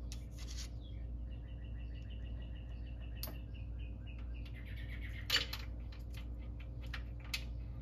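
A few light metallic clicks and taps as a magnet tool is worked down a Ford Y-block lifter bore to fish out a lifter, the sharpest about five seconds in. Underneath runs a steady low hum, with a long faint high whistle in the first half.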